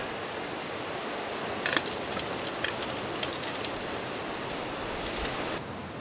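Metal tongs clinking against a steel grill grate over a wood fire: a run of light metallic clinks in the middle, over a steady hiss.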